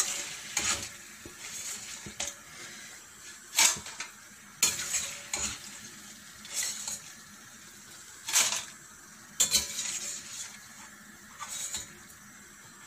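A slotted metal spatula scraping and clinking against a stainless steel kadai, about once a second and irregularly, as fried potato chips are lifted out of the hot oil. Under it runs a faint steady sizzle of frying oil.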